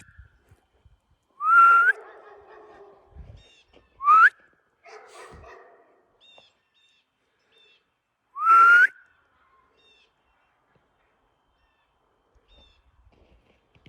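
A person whistling to call a dog: three loud whistles, each rising in pitch. The second is short and the other two a little longer, spread over about nine seconds.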